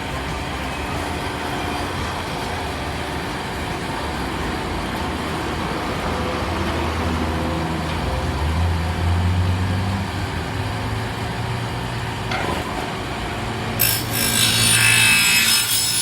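Street traffic: vehicle engines running with a steady low hum that grows stronger in the middle. In the last two seconds a loud, harsh rushing noise comes in over it.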